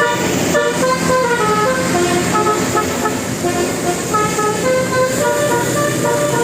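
Bus telolet horn of the Basuri type playing a tune of short notes that step up and down in pitch, with a vehicle engine running steadily underneath.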